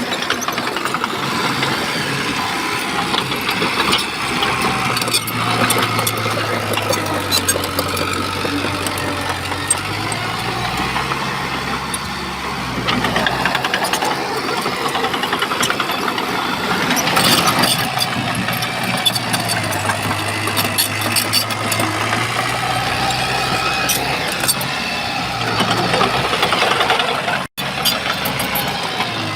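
Shantui bulldozer's diesel engine running under load, its note shifting up and down, with scattered clanks and rattles. The sound drops out for an instant near the end.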